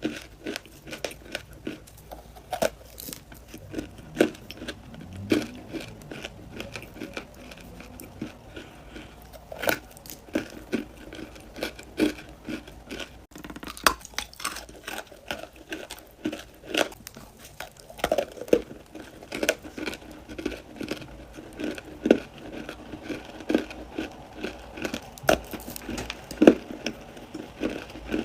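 Close-miked crunching and chewing of hard clay: irregular crisp cracks and crackles, several a second, as pieces are bitten and ground between the teeth.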